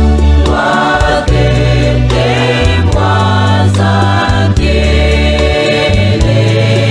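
Gospel music with a choir singing over low sustained bass notes that shift every second or so.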